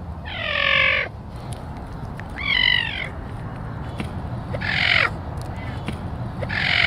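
An animal giving four harsh, squawking calls about two seconds apart, over a low steady rumble.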